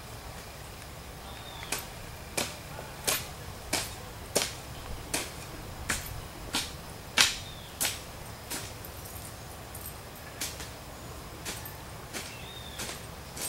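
A hoe blade chopping into a heap of clay soil, cutting up the clay for mixing. The sharp strikes come in a steady rhythm of about one every 0.7 seconds, then slow to a few spaced-out blows near the end.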